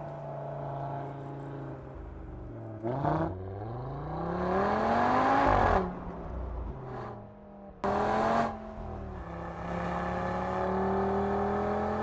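Audi TT RS turbocharged 2.5-litre five-cylinder engine under way, running steadily, then revving up from about four seconds in and dropping sharply near six seconds. Sudden louder bursts of engine sound come around three and eight seconds in.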